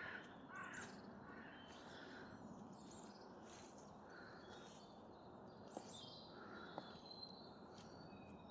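Faint woodland ambience: scattered distant bird calls and thin high chirps over a soft background hiss, with two small ticks near the end.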